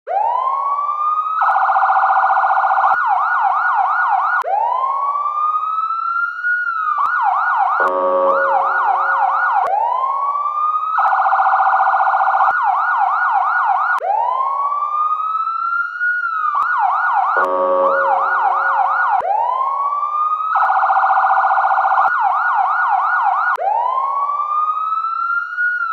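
Police siren sound effect cycling through its modes: a rising wail, a held tone, a fast yelp, and a low horn blast under the yelp. The whole sequence repeats about every ten seconds.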